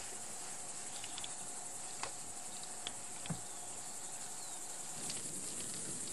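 Meadow insects chirring steadily in a high, continuous trill, with a few soft ticks in the middle. The background shifts about five seconds in, as a faint steady hum drops out.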